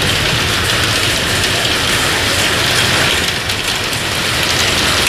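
Heavy rain and strong wind of a severe storm: a loud, steady rush with a low rumble underneath.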